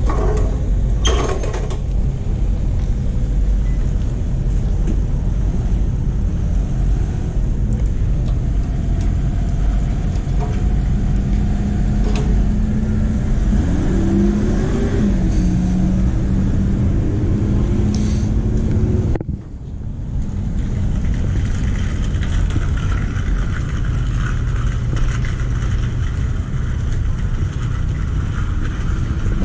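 Outdoor car-park noise: a steady low rumble, with a car engine's hum for several seconds in the middle, rising in pitch briefly. The sound drops out for a moment about two-thirds through.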